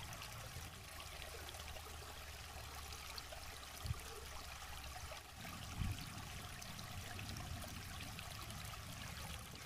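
Shallow rocky stream trickling steadily, with two low thumps about four and six seconds in.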